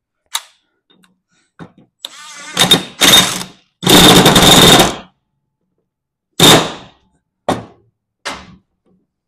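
Cordless impact wrench running in bursts on a lawn tractor mower deck's pulley spindle nut, tightening a nut the owner suspects had loosened off: a short blip, then longer runs between about two and five seconds in, then three short bursts near the end.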